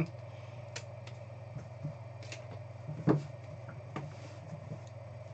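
A few light clicks and taps of a hard clear plastic card holder being handled, the loudest about three seconds in, over a steady low hum.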